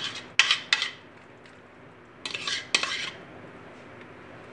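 Serving spoon scraping thick, creamy fruit chaat out of one bowl into another, with short scrapes and knocks against the bowls: two near the start, then two more a little after two seconds in.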